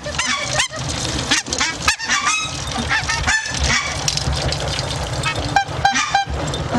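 A flock of young geese honking, many short overlapping calls one after another, over a steady low rumble.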